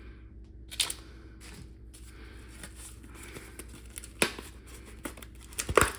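A shipping package being torn open and its wrapping crinkled by hand, with scattered rustles and a few sharper crackles.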